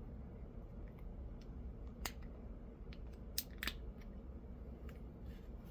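Plastic clicks and snaps as a car window switch is pried out of its housing with a screwdriver, the locking tabs giving. A few faint ticks, then three sharp clicks, one about two seconds in and two close together around three and a half seconds.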